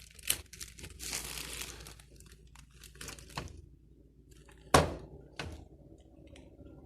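Crinkling and rustling, like plastic being handled, with scattered clicks and one sharp knock nearly five seconds in, followed by a smaller knock, as the washing machine's hose is being fitted.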